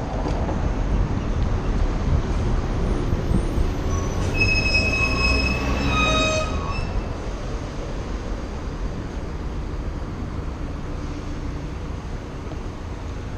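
Wind buffeting and road rumble on an action camera's microphone during a bicycle ride. About four seconds in, brakes squeal with a steady high tone for around three seconds.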